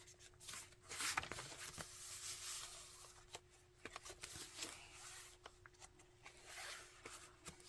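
Pages of a handmade junk journal being turned and handled: soft paper rustles and a scatter of light taps and clicks, with a faint steady hum underneath.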